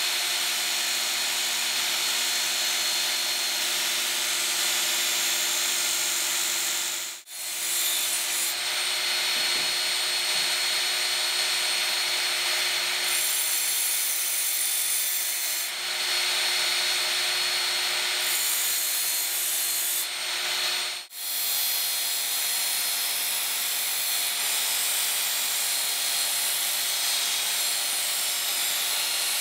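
Work Sharp electric belt knife sharpener running with a steady motor whine while its abrasive belt grinds a steel kitchen knife blade, smoothing the rough corners left on the steel. The sound cuts out briefly twice.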